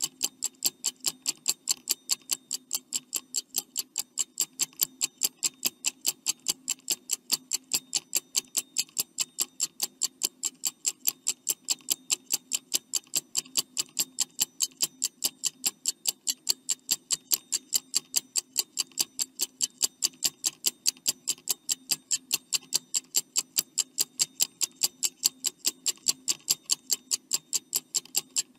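Stopwatch ticking sound effect counting down the answer time: rapid, evenly spaced ticks several times a second at a steady level, over a faint steady hum.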